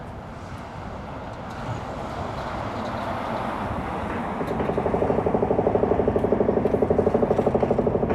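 Mantis hydraulic concrete hammer pounding at the smokestack's concrete, heard from a distance: a fast, even rattle of about a dozen blows a second that comes in about four seconds in and becomes the loudest sound. Under it is a low, steady rumble.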